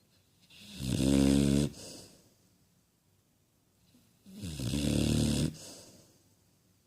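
Cane Corso (Italian mastiff) snoring in its sleep: two long, pitched snores a few seconds apart, each swelling up and then breaking off abruptly, with a softer fading breath after it.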